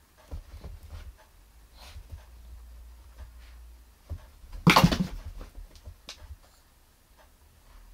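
Chihuahua's paws shuffling and scratching on a fleece blanket as it turns in circles, with scattered light clicks and one louder, rough burst of noise lasting about half a second just past the middle.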